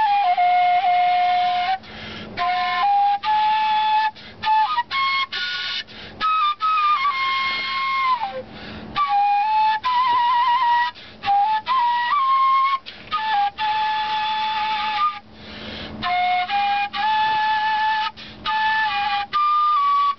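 Kaval, a Bulgarian end-blown wooden shepherd's flute, playing a slow solo melody. It moves in held notes with a breathy tone, separated by short pauses for breath. There is a quick trill about ten seconds in and a falling slide just before it.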